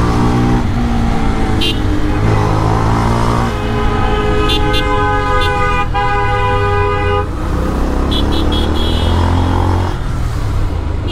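Motorcycle with a modified exhaust running through traffic, its engine note rising and falling with the throttle. A vehicle horn sounds one long steady honk from about three and a half to seven seconds in. A few short high beeps come in between.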